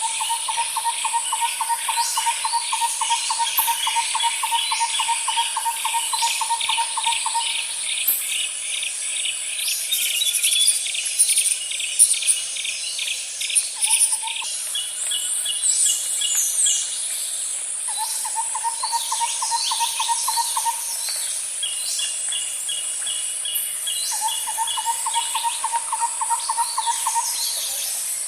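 Nature ambience of insects and birds: a steady high insect drone throughout, under a low, rapid trill that runs for about seven seconds and then comes back in shorter bouts of a few seconds. A higher, faster pulsed series and scattered bird chirps sit on top.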